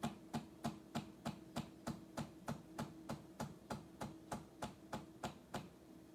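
A regular series of sharp clicks, about three a second, each with a short low thump, over a faint steady hum; the clicks stop near the end.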